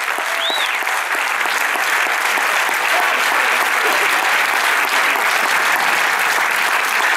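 Audience applauding steadily, with one short whistle about half a second in.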